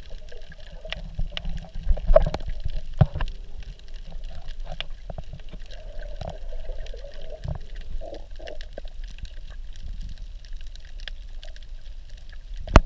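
Underwater sound picked up by a GoPro in its waterproof housing: a muffled low rumble of moving water with many scattered small clicks and crackles, a louder swell about two seconds in, and one sharp knock near the end.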